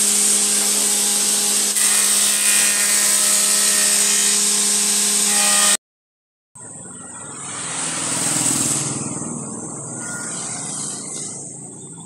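Circular saw bench running with a steady hum while a board is fed through it. It cuts off suddenly about six seconds in, and after a brief silence road traffic is heard, one vehicle passing loudest about two seconds later.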